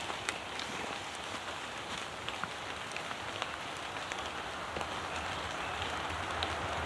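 A steady hiss of outdoor noise dotted with scattered faint ticks, like light rain pattering.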